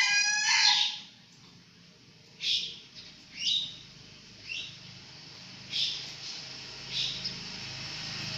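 A bird chirping: short, high single chirps about once a second, some gliding down and some up in pitch, after a shrill pitched cry right at the start.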